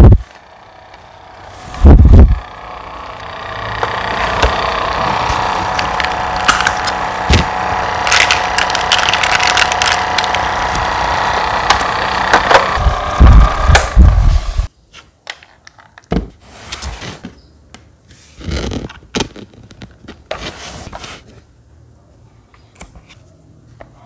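Small plastic mini air-conditioner desk fan running with a steady whine, tissue paper fluttering in its airflow; the fan stops suddenly about fifteen seconds in. Two loud thumps near the start and scattered knocks of the plastic unit being handled afterwards.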